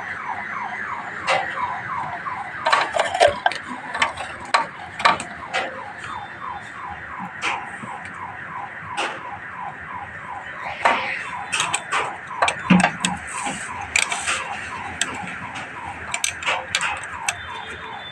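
A high chirp repeating about three times a second, each one falling in pitch, runs on steadily, like an electronic alarm. Sharp metallic clicks are scattered through it.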